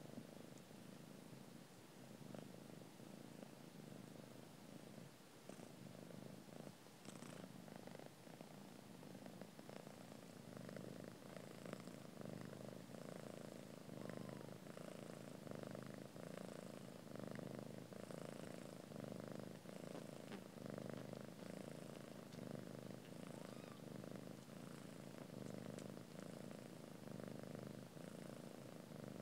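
Mother cat purring steadily and softly while her newborn kittens nurse, with a few faint clicks above the purr.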